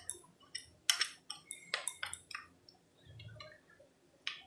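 Steel spoon stirring a thick yogurt and spice mix in a bowl, clinking and tapping lightly and irregularly against the bowl's rim and sides.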